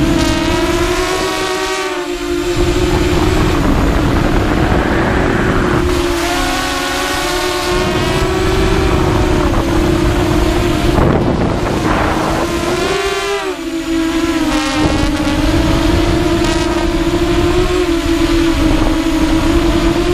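FPV racing quadcopter's brushless motors and propellers whining from on board, the pitch rising and falling as the throttle changes, with wind rushing over the microphone. The throttle eases off briefly about two seconds in, again around six to seven seconds in, and near thirteen seconds.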